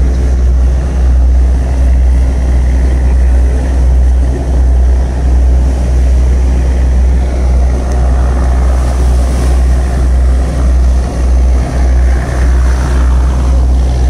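Vehicle ferry under way: its engine running with a steady low drone, mixed with wind rumbling on the microphone.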